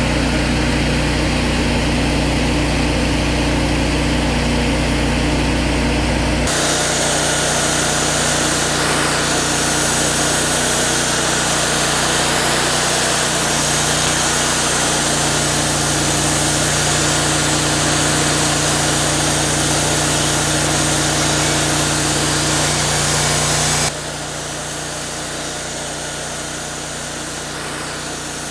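Wood-Mizer LT40 band sawmill running: a steady engine drone, joined from about six seconds in by a loud hiss of the band blade cutting through a pecan log. Near the end the hiss stops abruptly and a quieter engine run remains.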